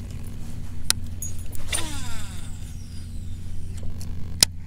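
Sharp clicks and a short whir that falls in pitch from a baitcasting reel being worked, over a steady low hum. The loudest click comes near the end.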